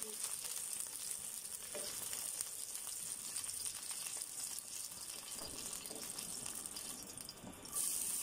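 Hot oil sizzling and crackling in a frying pan as fried okra is lifted out. Near the end, sliced onions go into the oil and the sizzling jumps louder.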